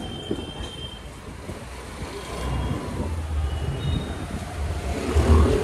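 Road vehicle noise: a low rumble that grows louder, with a few short high-pitched squeals near the start and again around four seconds in.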